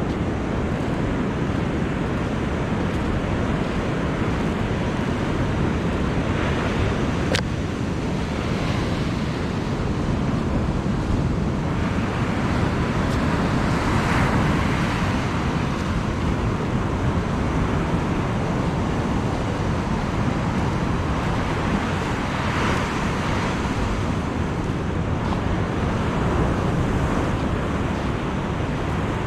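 Ocean surf breaking and washing up a sandy beach, a continuous rush that swells louder twice as waves break, with wind buffeting the microphone. A single sharp click sounds about a quarter of the way in.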